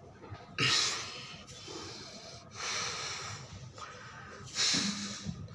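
A man breathing forcefully while holding a push-up position: three hard breaths about two seconds apart, each starting suddenly, the first and last loudest.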